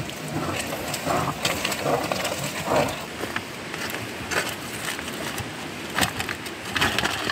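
Rustling and scraping of leaves, soil and rock as a hand works into a rock crevice, with irregular sharp clicks and knocks scattered through.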